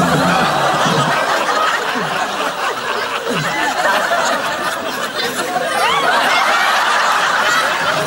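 Audience laughing loudly and continuously, many voices at once.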